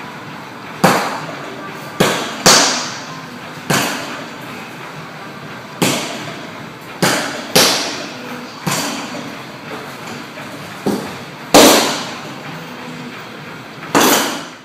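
Hanging heavy punching bags being struck: about a dozen sharp smacks at irregular intervals, each with a short ringing tail. Most are kicks landed from a handstand, and the last is a punch near the end.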